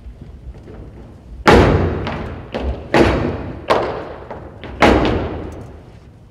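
Cadets' boots stamping on a hollow stage riser in drill movements: about five loud thuds at uneven intervals, each echoing.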